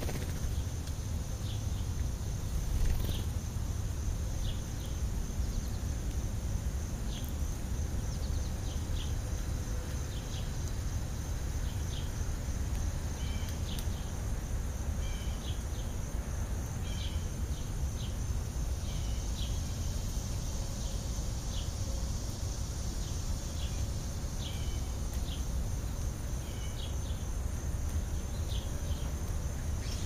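House sparrows chirping in short single chirps, one every second or so, over a steady high insect drone and a constant low rumble. A brief knock sounds about three seconds in.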